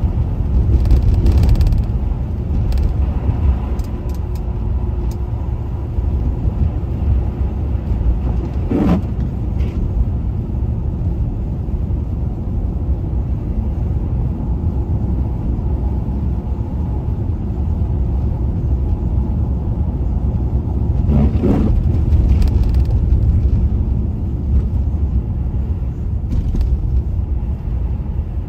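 A car driving on the road, with a steady low rumble of engine and tyre noise. Two brief whooshes come about nine and twenty-one seconds in.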